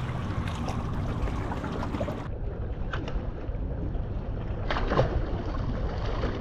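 Wind buffeting the microphone over small waves lapping against shoreline rocks, with a brief thump about five seconds in.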